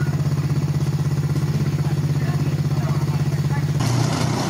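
A small engine running steadily with an even, rapid pulse; near the end the sound changes abruptly and turns noisier.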